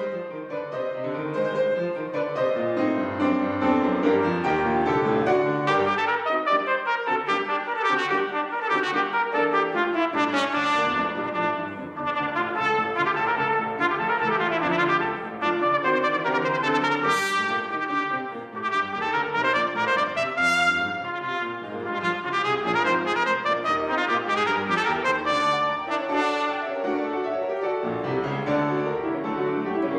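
Solo trumpet played with grand piano accompaniment, in rapid, continuous runs of notes.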